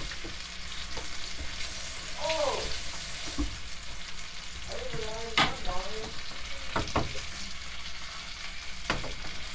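T-bone steak and melting butter sizzling steadily in a frying pan over a low gas flame, with a few sharp pops or clicks in the second half.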